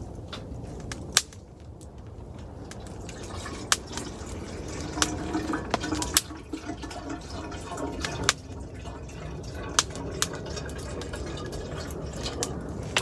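Rainwater dripping, scattered irregular drips and ticks over a steady low hiss of rain.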